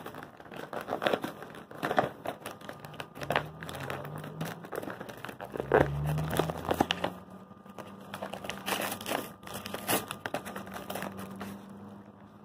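A DVD case and its packaging being handled and opened: irregular crinkling and rustling with scattered clicks.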